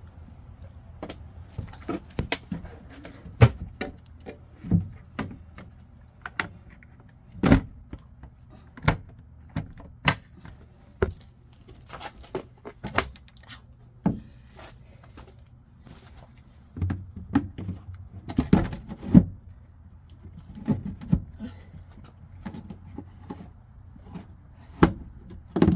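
Irregular knocks, clicks and thuds as the step cover panel and fittings are handled and refitted over the battery compartment, with a busy run of knocks about two-thirds of the way through, over a low steady hum.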